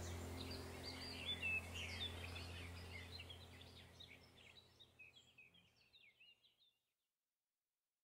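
Birdsong: many quick chirps and trills over a low steady hum, fading out over the first half and giving way to silence.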